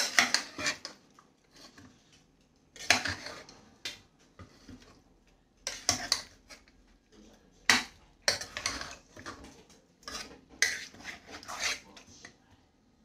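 A metal spoon clinking and scraping against the inside of a pressure cooker as boiled vegetables are dug out, in short irregular clatters every second or two.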